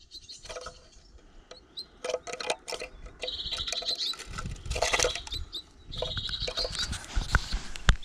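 A small bird, an azure tit, fluttering inside a wooden slatted cage, its wings and feet giving scattered clicks and knocks against the bars. High trilled chirps come twice, about three seconds in and again about six seconds in.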